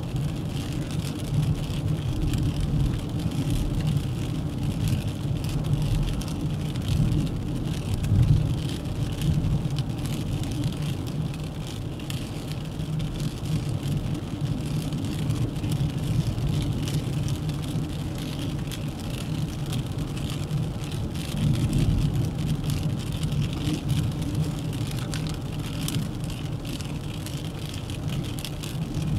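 Dacia Duster 1.3 TCe 4x4 driving along, a steady low rumble of engine and tyre noise with a fine hiss on top, swelling briefly louder twice.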